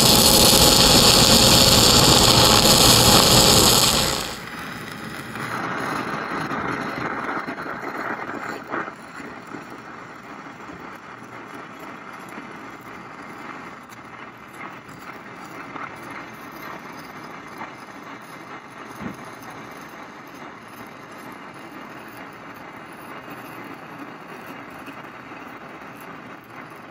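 Stick-welding arc of a 6010 electrode burning steadily as the open root pass is run, a loud steady hiss that drops suddenly to a much quieter hiss about four seconds in.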